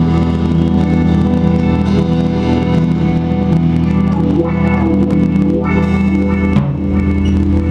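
Electric guitar music, its chords held and ringing in long sustained notes, with a change of chord about two-thirds of the way through.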